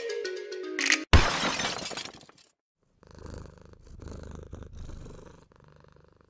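Outro music with plucked, mallet-like notes, cut off about a second in by a loud crash-like burst that fades away over about a second. Then a low rumbling sound effect comes in three uneven swells and fades out near the end.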